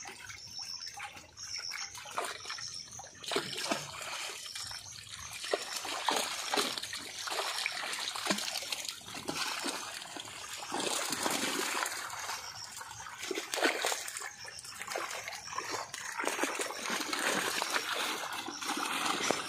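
Shallow river water splashing and trickling as people wade and handle a cast net in it, with many small irregular splashes.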